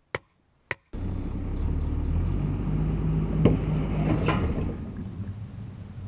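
Two sharp knocks, then from about a second in a vehicle engine running steadily, with one loud knock about three and a half seconds in. The engine fades near the end, and faint bird chirps sound over it.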